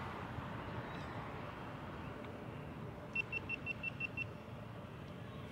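A quick run of seven short, high electronic beeps, about six a second, over steady background noise.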